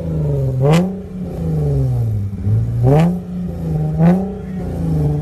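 Nissan 370Z's 3.7-litre VQ V6 revved while standing still, through a single-exit titanium exhaust that is not resonated. It is blipped about three times, near the start, around three seconds in and about a second later, with a sharp crack at the top of each rev, then settles back down.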